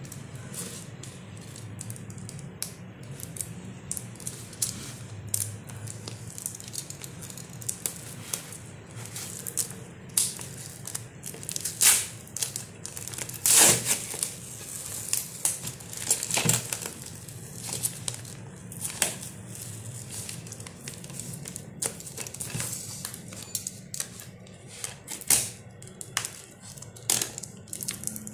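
A taped paper parcel being slit with a box cutter and its wrapping torn open by hand: irregular scraping, clicking, crinkling and tearing, with a few louder rips near the middle.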